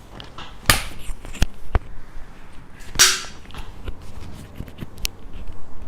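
A string of about six sharp cracks and snaps with rustling in between during chiropractic treatment. The loudest comes about three seconds in, with a short rustle after it.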